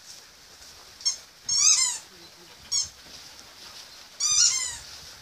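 A dog whining in high-pitched squeals: two short whines and two longer, wavering ones, the longer ones about a second and a half in and near the end.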